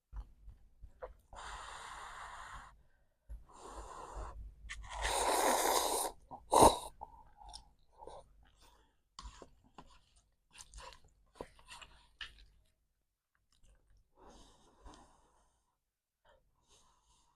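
A person eating, with three long hissing breaths in the first six seconds, then chewing and small wet mouth clicks. A loud sharp click comes about six and a half seconds in.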